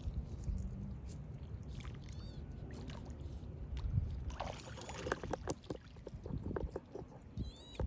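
Water splashing and sloshing in short sharp bursts, most of them a little past the middle, typical of turtles snatching food at the surface, over a steady low rumble. A bird chirps briefly twice.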